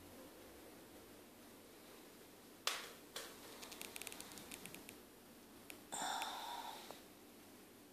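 Handling noises at the aquarium as a cucumber slice goes into the tank: a sharp knock, a run of light clicks, then a brief hiss about a second long.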